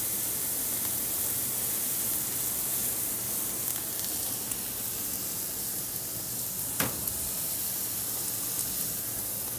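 Shredded cabbage and carrot slaw sizzling in butter oil and sauces on a hot Griddle Master griddle top, a steady hiss as the cabbage fries and steams. One short click about seven seconds in.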